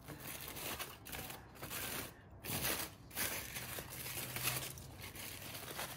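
Aluminium foil crinkling and tearing as a foil parcel is slit with a knife and pulled open by hand, in several bursts with short pauses between.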